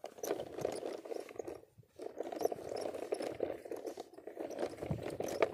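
Plastic toy dump truck pushed by hand over gritty sandy ground, its wheels rolling and scraping with a rough crunching, broken by a brief pause about two seconds in.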